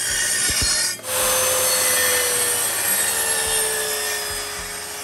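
Parkside electric circular saw cutting through a plywood board. There is a short cut, a break about a second in, then one long steady cut with the motor's whine sinking slightly as the blade works through the wood.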